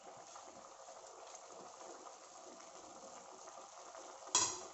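Chicken simmering gently in its liquid in a pan, a soft steady bubbling and crackle, with a brief louder rattle near the end.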